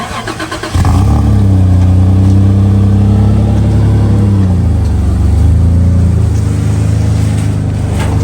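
Car engine held at high revs under hard throttle, cutting in sharply under a second in. The revs drop a little about halfway through, then hold high again.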